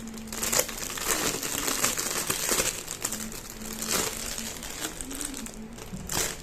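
Packaging crinkling and rustling as the parts of a new vegetable chopper are unwrapped and handled, with irregular sharp crackles.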